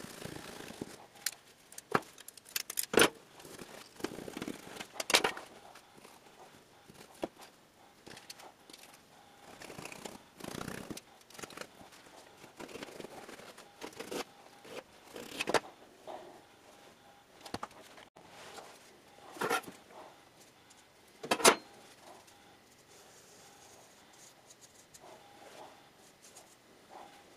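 A utility knife cutting through ceramic fibre insulation blanket along a square and a steel rule, with irregular sharp clicks and knocks from the knife and tools being handled on the bench.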